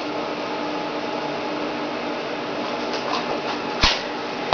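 Steady background hum and hiss, like a fan or other small machine running, with a single light knock near the end.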